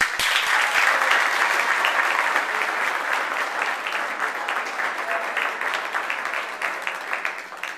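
Spectators applauding, starting suddenly and tapering off toward the end.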